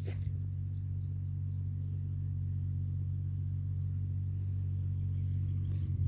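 A steady low rumble, with faint insect trilling high above it.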